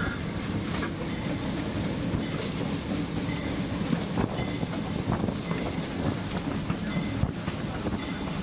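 Cab interior of a GE U30C diesel locomotive under way: the steady low rumble of the V16 diesel and running gear, with the wheels clicking irregularly over rail joints.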